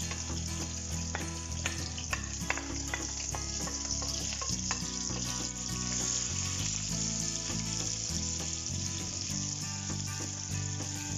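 Sliced artichokes and their stems sizzling steadily as they fry in hot guanciale fat in a frying pan, stirred with a wooden spatula. A few light knocks come in the first few seconds.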